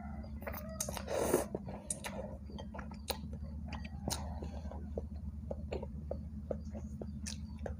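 A mouthful of noodles slurped up about a second in, then close-miked wet chewing with many small mouth clicks, over a steady low hum.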